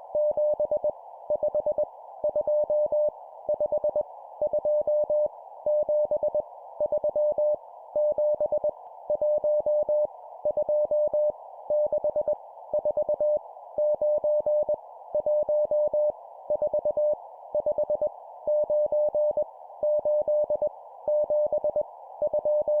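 Morse code (CW) sent at 20 words per minute: a single steady mid-pitched tone keyed into dots and dashes, spelling random numbers one character at a time with short pauses between, over constant background hiss.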